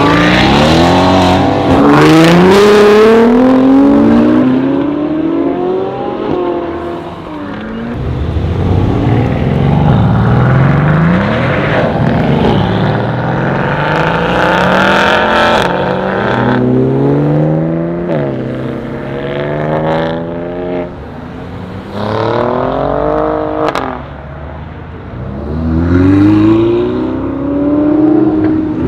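Several supercar engines accelerating hard in turn, each revving up in rising sweeps and dropping in pitch at the upshifts.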